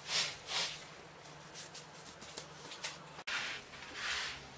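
Hands kneading and squeezing a tray of moist sea salt bound with egg white: gritty, crunchy squishing strokes, two strong ones at first, softer crackling in the middle, then broader swells again near the end.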